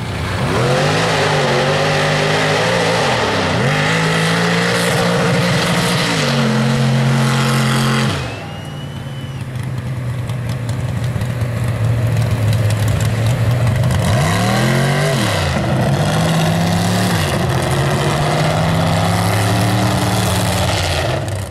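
Off-road 4x4 truck engines revving hard, their pitch climbing and falling repeatedly as the throttle is worked. The sound switches to a different truck about eight seconds in.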